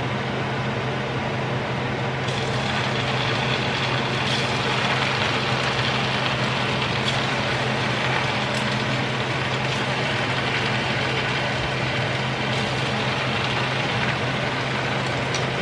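Churro batter frying in hot oil in a stainless steel pan: a steady sizzle, with a low steady hum underneath.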